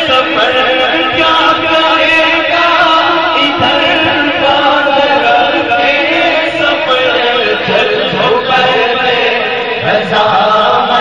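A man singing a naat, an Urdu devotional song, into a microphone over a sound system, in long held melodic lines.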